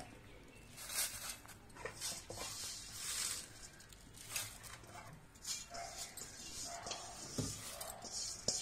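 Crisp fried curry leaves rustling and crackling as they are scooped by hand and dropped into a steel mixer jar, with bangles jingling on the working wrist and a soft knock about seven and a half seconds in. A few brief faint whining tones sound in the background.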